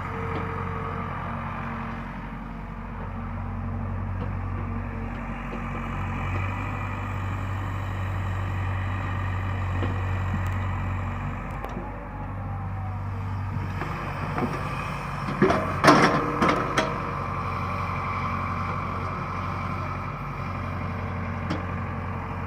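Excavator's diesel engine running steadily, with a short run of sharp knocks about two-thirds of the way through.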